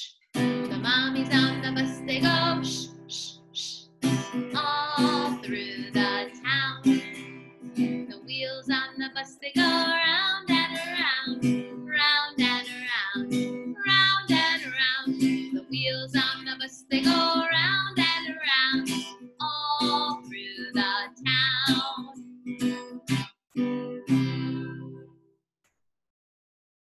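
A woman singing a slow song over strummed acoustic guitar, ending about two seconds before the close.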